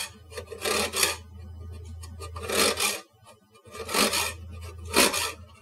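Knife tip scraped along the rows of holes of a metal box grater, in about five short rasping strokes at uneven intervals, loosening lemon zest caught in the grater.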